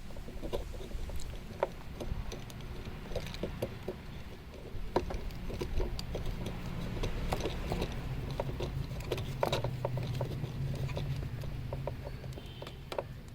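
Handling noise of plastic hose fittings being fitted to a small electric car pressure washer: scattered light clicks and knocks, over a low steady hum.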